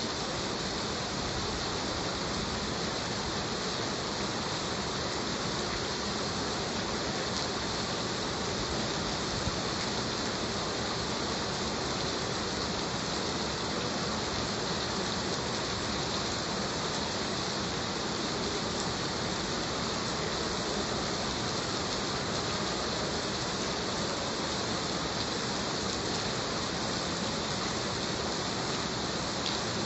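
Heavy rain falling in a steady, even hiss, with a few faint drop ticks.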